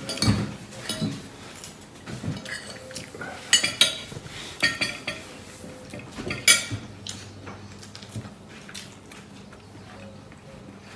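Metal spoon and fork clinking and scraping on a plate while eating, a string of irregular clinks that thin out after about seven seconds.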